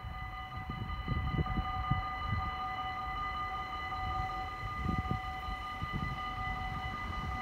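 Wind buffeting the microphone in uneven gusts, over a steady high whine made of several held tones that does not change in pitch.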